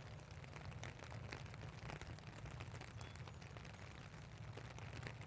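Rain falling: scattered sharp drop ticks over a steady low rumble, faint.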